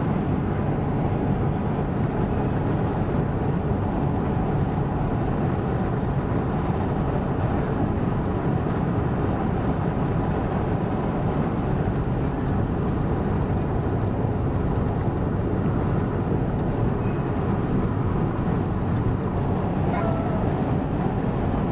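Steady low rushing noise inside a car cabin, even throughout, with a faint rising whistle near the end.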